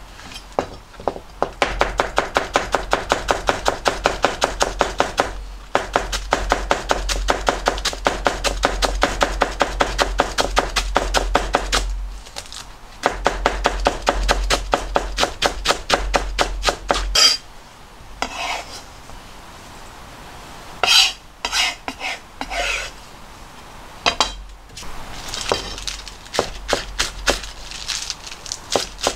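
Japanese vegetable knife shredding cabbage on a plastic cutting board: long runs of rapid, even chopping strokes, each knocking on the board. The strokes break off briefly several times, give way to a few seconds of scattered knocks and handling past the middle, and pick up again near the end.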